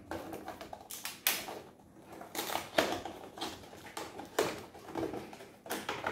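Cardboard retail box of a Bluetooth neckband being opened by hand: an irregular run of taps, scrapes and crinkles as the packaging is pried apart.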